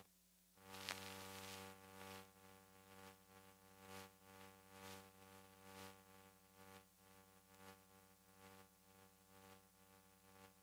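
Near silence: a faint steady electrical hum and hiss, with soft ticks about once a second.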